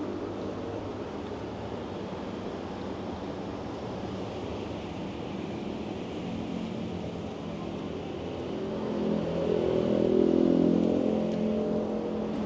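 Road traffic: a vehicle engine hums steadily, and one vehicle passes close and loud about nine to eleven seconds in.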